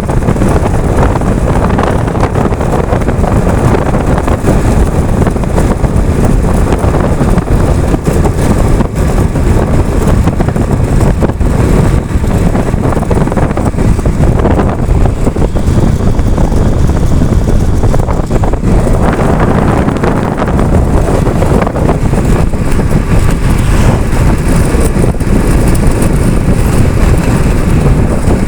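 Strong wind buffeting the microphone: a loud, constant low rumble that gusts up and down.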